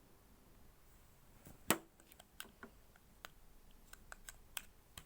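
Scattered small plastic clicks and taps as a ring light's USB cable is handled and plugged into a charger, with one louder click about a second and a half in.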